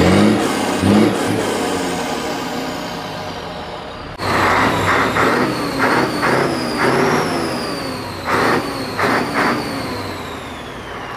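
Heavy truck diesel engine with open exhaust pipes: a loud rev dies away over the first few seconds, then after an abrupt change about four seconds in it is blipped repeatedly, about ten short throttle bursts, each falling back toward idle.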